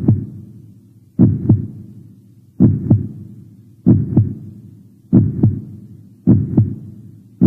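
Heartbeat sound effect: a slow lub-dub double thump repeating about every 1.3 seconds, the two strikes of each pair about a third of a second apart, each pair followed by a low, fading rumble.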